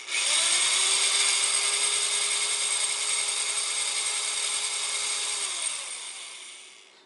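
Electric drill with a 9/32-inch bit boring a hole through a plastic disc. The motor starts just after the beginning, runs steadily under load, then slows and winds down to a stop about six to seven seconds in.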